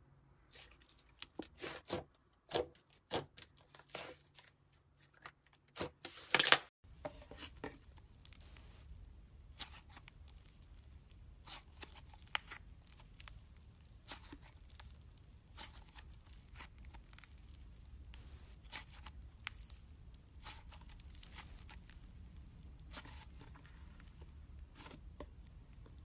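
Slime being squeezed and pulled apart by hand, a run of sticky tearing and crackling sounds that is loudest in the first seven seconds. After a sudden cut, fainter scattered clicks and crackles continue over a low steady hum.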